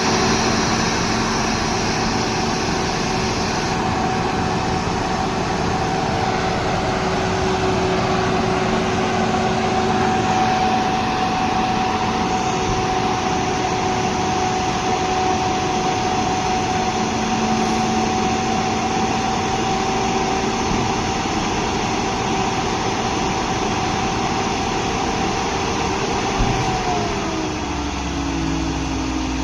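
Heavy construction machine's engine running steadily under load, with a held hum over its noise. Its pitch falls about three seconds before the end as the engine slows.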